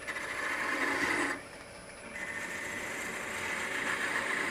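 Turning tool cutting into a spinning mahogany finial on a wood lathe: a steady scraping cut for about a second and a half, a short break, then a second, steadier cut.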